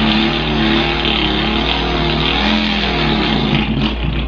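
A boy imitating a Volkswagen engine with his voice: a continuous buzzing drone whose pitch wavers up and down, then thins out near the end as he mimics the engine stalling.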